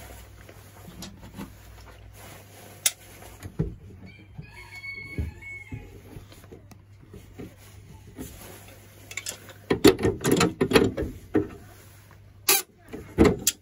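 A metal spanner clinks and scrapes on the brass nut of a braided flexible hose as it is tightened onto the threaded plastic inlet tail of a toilet cistern. The loudest stretch, a dense run of knocks and scrapes, comes about ten seconds in and lasts over a second, with two sharp knocks near the end.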